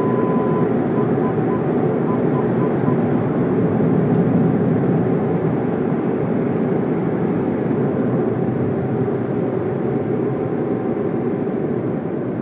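Steady rushing noise of an automatic car wash at work on the car, heard from inside the cabin. Over the first few seconds the Audi's parking-sensor warning sounds a continuous tone that breaks into spaced beeps and then stops.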